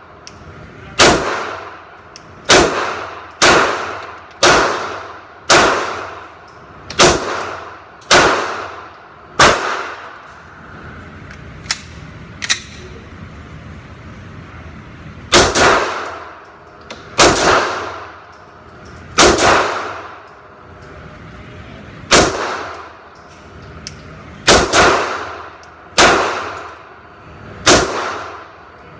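Glock 19 Gen 4 9mm pistol being fired, with shots about a second apart and each report echoing off the steel walls of an indoor range booth. About eight shots come in a first string, then a pause of several seconds with two light clicks, then a second string of about a dozen shots.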